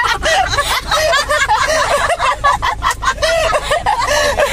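A man and a woman laughing together inside a car cabin, over the car's steady low rumble.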